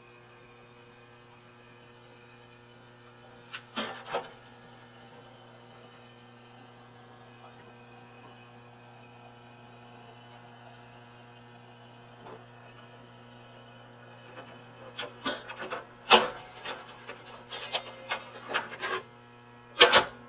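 Steady electrical mains hum with a few higher tones above it. Over it come scattered clicks and knocks: a pair about four seconds in, then a busy cluster over the last five seconds.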